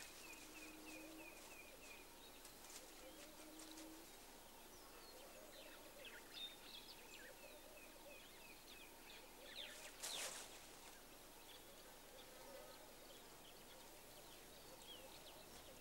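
Near silence: faint outdoor ambience with scattered small bird chirps, a quick run of ticking chirps at the start and one brief louder sound about ten seconds in.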